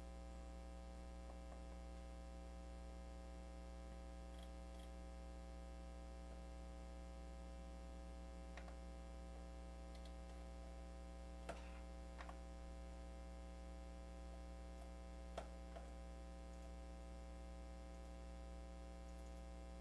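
Steady electrical mains hum with a few faint clicks, from buttons being pressed on a Roland MV-8800 workstation while browsing for a bass sound.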